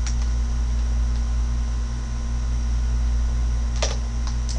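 Steady low electrical hum with hiss in the recording's background, with a few computer keyboard keystroke clicks about four seconds in.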